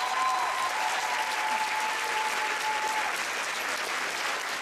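Audience applauding, the clapping slowly getting quieter.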